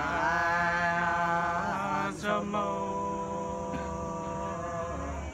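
Men singing a Nùng sli folk song without accompaniment: long drawn-out held notes in two phrases, with a short break about two seconds in.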